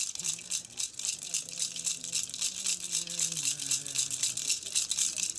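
Gourd rattle shaken fast and steadily, with a Piaroa shaman's low chant held on long notes beneath it. The chant drops in pitch about halfway through. It is a chant to bring on trance.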